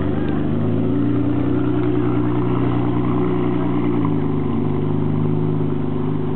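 Ferrari 599 GTB Fiorano's V12 running steadily at low revs through a Tubi aftermarket exhaust, its pitch stepping slightly lower about four seconds in.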